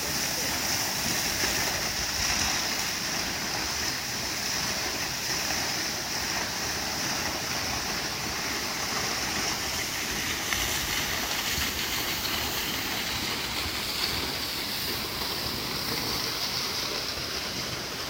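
Svartifoss waterfall: a steady rush of falling water splashing into its pool.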